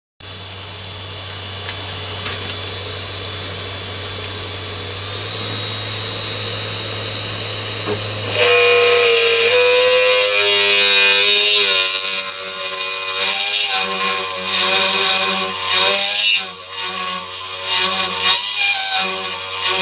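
Machifit 500W ER11 spindle motor running steadily with a drill in its collet. About eight seconds in, the bit bites into the metal workpiece and a louder cutting whine sets in. Toward the end the whine breaks off and returns several times as the feed is eased in and backed out.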